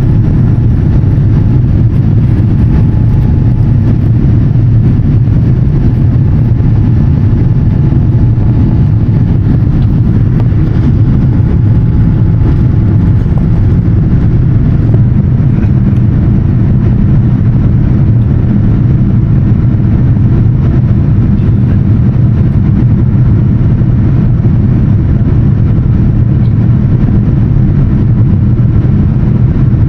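Boeing 787-10 engine and airflow noise heard inside the passenger cabin during the takeoff: a loud, steady low rumble that holds even throughout.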